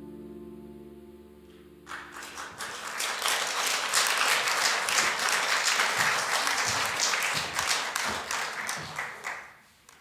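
The last held chord of the song's accompaniment dies away. About two seconds in, an audience starts applauding, and the applause fades out near the end.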